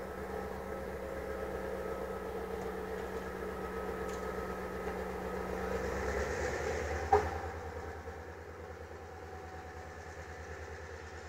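HŽ class 2062 GM-built diesel locomotive's engine running steadily as it pulls out. The sound builds slightly, there is a single sharp click about seven seconds in, and about a second later the engine sound drops to a lower level.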